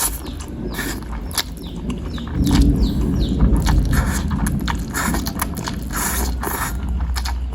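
Close-miked eating of bakso meatballs and noodles: chewing with many small clicks of spoon and bowl, and a heavier rumble of mouth and handling noise from about two seconds in. A few short bird chirps sound in the background.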